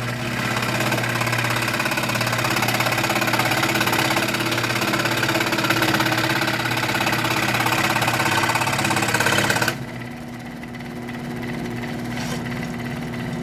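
Wen scroll saw running and cutting wood: a steady motor buzz with the blade rasping through the wood, cutting smoothly, without the crying it had before the blade's tension was reset. About ten seconds in the rasping stops suddenly and the saw runs on more quietly.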